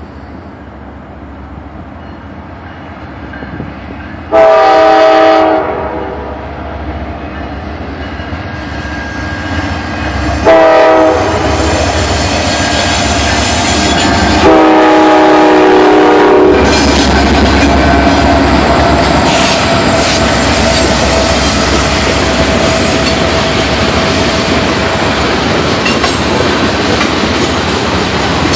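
Norfolk Southern freight train approaching and passing. The lead diesel locomotive sounds its air horn three times, the last blast the longest. Then the locomotives run by and a line of coal gondola cars follows with steady, loud rolling wheel noise and clatter.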